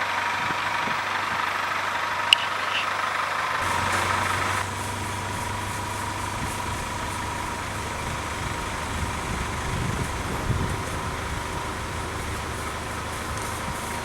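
Engine of a truck-mounted crane running steadily during a lift. About four seconds in its sound deepens into a lower rumble. A single sharp click comes about two seconds in.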